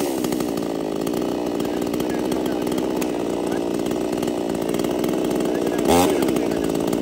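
Robin Plus RCS-99 two-stroke chainsaw idling steadily, with one brief throttle blip, a quick rise and fall in engine pitch, about six seconds in.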